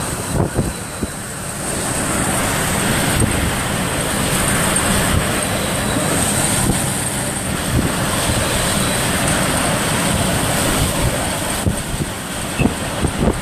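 Hurricane eyewall winds blowing hard against a car, heard from inside the cabin as a loud, steady rush with gusts thumping against the body near the start and again near the end.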